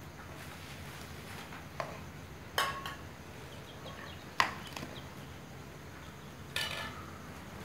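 Steel serving spoon scraping and clinking against the side of an aluminium cooking pot as cooked biryani rice is turned over. There are about four separate clinks a second or two apart, one ringing briefly.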